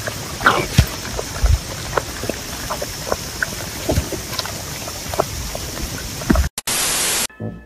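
Kangaroo joeys sucking on milk bottles: scattered wet clicks and smacks over a steady hiss. About six and a half seconds in the sound drops out, then a loud burst of hiss lasts about half a second, and music begins near the end.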